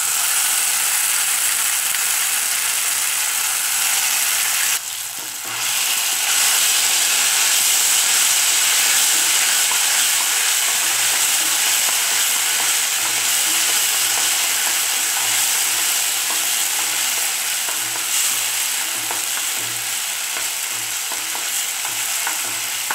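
Mint paste frying in hot oil in a steel kadai, a steady sizzle, while a wooden spatula stirs and scrapes it around the pan. The sizzle dips briefly about five seconds in.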